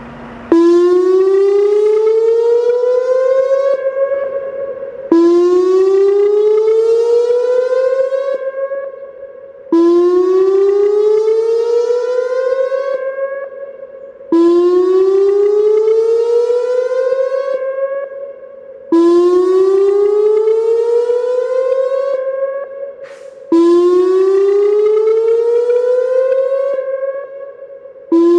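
Whelen WPS-2910 electronic outdoor warning siren sounding its whoop tone for a dam failure warning test: six rising whoops, each sweeping upward for about four seconds and then dropping off, repeating every four and a half seconds, with a seventh beginning right at the end.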